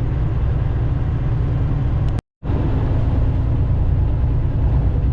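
Steady low drone of a semi-truck's engine and road noise heard inside the cab while driving. The sound drops out completely for a split second about two seconds in.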